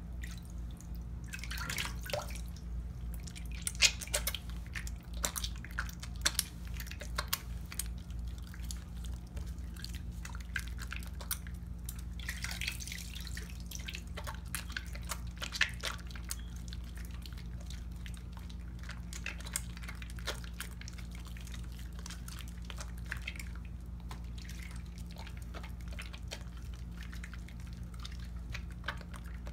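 Wet hands splashing and dripping in a sink basin of water while handling a wet bar of soap: scattered drips and wet clicks, busiest in the first half, over a steady low hum.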